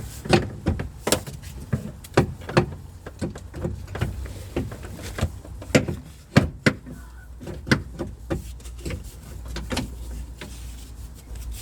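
Irregular knocks and clicks of the steering rack's pipe and fittings being worked into position under the car, over a steady low hum.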